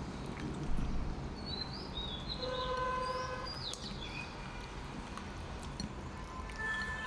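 Small birds chirping in short rising-and-falling calls over a steady low hum, with a held, even tone sounding for about a second a few seconds in.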